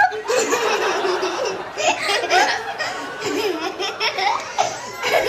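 Children laughing hard together, more than one voice at once, with rising and falling squeals and no pause.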